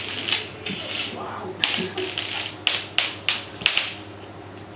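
Irregular light taps and scuffs of cat play: a string toy flicked and dragged over a wooden floor as cats bat at it, with the sharp taps coming thicker in the second half.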